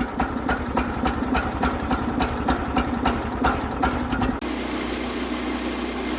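Small gasoline engine of a Woodland Mills HM122 portable sawmill running, with regular sharp ticks about three times a second. About four seconds in the sound changes abruptly to a steadier, even hum.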